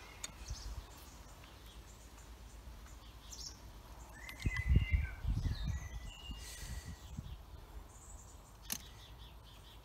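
Small birds chirping in the background, with a cluster of low thumps about halfway through and a single sharp click near the end.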